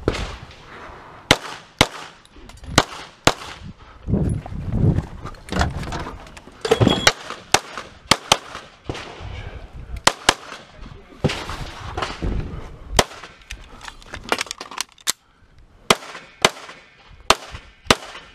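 Handgun shots fired in a rapid string, mostly in quick pairs a fraction of a second apart, with short pauses between the groups of shots.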